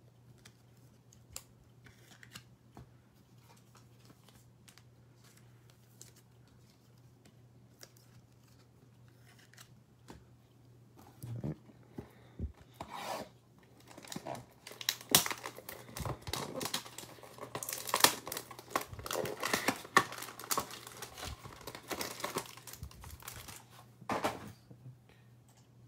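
Cardboard trading-card hanger box being torn open and the plastic-wrapped stack of cards pulled out, with tearing and crinkling. It starts about halfway through after faint handling clicks, and ends with a short knock as something is set down.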